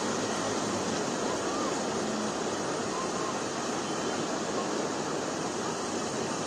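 Steady rush of heavy rain and traffic driving through deep floodwater, with wheels throwing up spray and engines running underneath.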